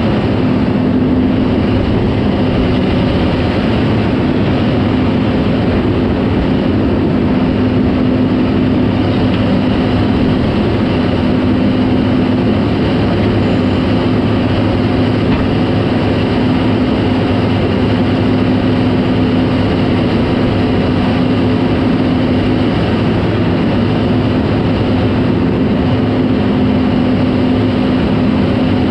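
Caterpillar D4 crawler tractor's diesel engine running steadily with a constant low hum.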